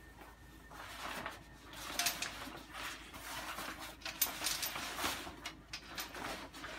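Fabric bike cover rustling and swishing in irregular rustles as it is shaken out and pulled down over a folded bicycle.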